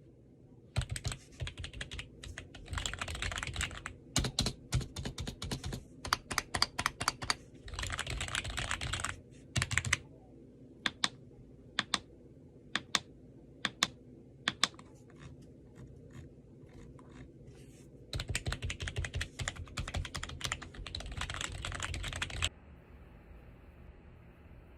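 Typing on a BENGOO G076 membrane keyboard sold as having a 'mechanical feeling': fast runs of keystrokes, a stretch of single, spaced key presses in the middle, then another fast run that stops a couple of seconds before the end.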